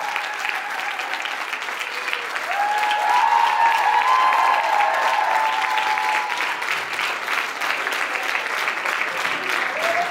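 Audience applauding, with a few raised voices over the clapping from about two to six seconds in.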